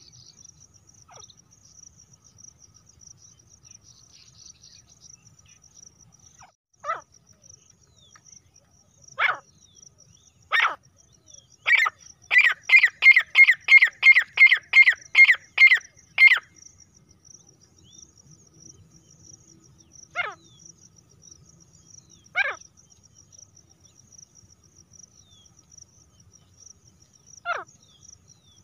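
Female grey francolin calling: a few single sharp, falling calls, then a quick run of about a dozen calls, two or three a second, near the middle, then more single calls a few seconds apart. Crickets trill steadily throughout.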